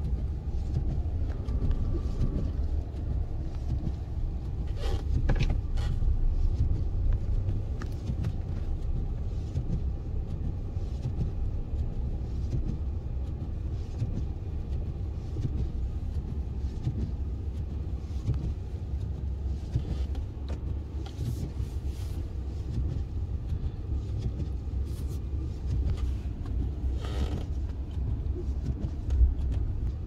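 Steady low rumble heard inside the cab of a Ram pickup truck rolling slowly through deep snow: engine and tyres working through a snow-covered parking lot, with a couple of brief louder swishes along the way.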